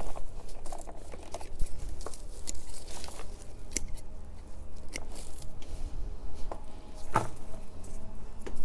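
Rustling and crinkling handling noise with many scattered sharp clicks, the loudest about seven seconds in, over a steady low rumble.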